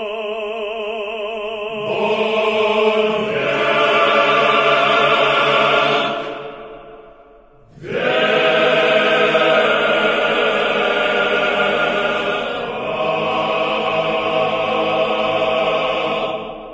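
Choir singing an Eastern Orthodox hymn in long held chords, with wavering vibrato at first. The singing breaks off about seven seconds in, then resumes with another long chord that fades out near the end.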